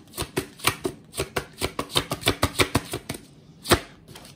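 An oracle card deck (Brian Froud's fairy deck) being shuffled by hand: a rapid run of crisp card clicks for about three seconds, then one sharper snap shortly before the end.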